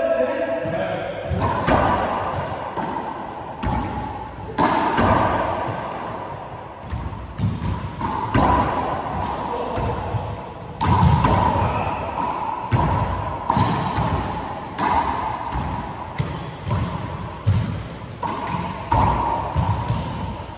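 A four-wall handball rally: the hard rubber ball struck by hand and smacking off the walls and floor again and again, sharp slaps about every second that echo around the enclosed court, with sneakers shuffling and squeaking on the hardwood floor.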